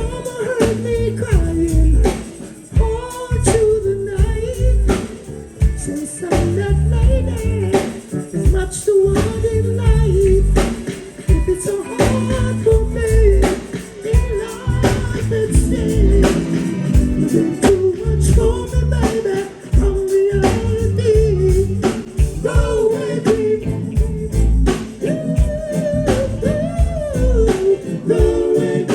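Live reggae band playing a song with singing over bass and drums.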